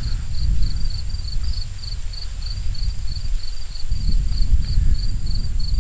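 Crickets chirping steadily, about five chirps a second, over a continuous low rumble.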